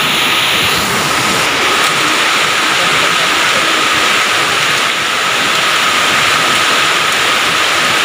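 Heavy rain mixed with hail pouring down in a hailstorm, a loud steady rushing hiss without a break.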